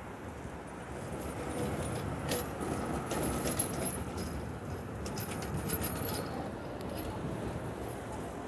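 Tatra KT4 articulated tram passing on curved track: a low rumble of wheels on rails, with high metallic clicking and jingling from the wheels and track through the middle seconds.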